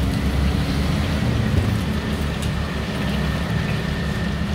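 Oil sizzling steadily as mini egg martabak deep-fry in a wok, over a steady low rumble, with a few light clicks of the frying utensils against the wok.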